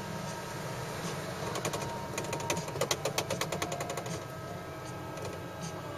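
A quick run of sharp mechanical clicks, about ten a second, starting about a second and a half in and stopping near four seconds, over a steady low hum inside a small electric ride car.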